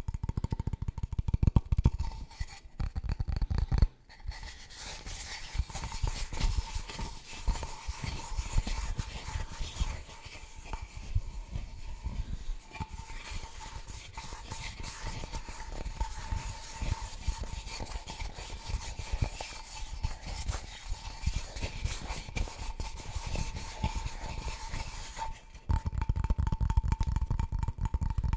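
Fingers tapping on a wooden board, then from about four seconds in a steady scratching and rubbing across the wood. The tapping returns near the end.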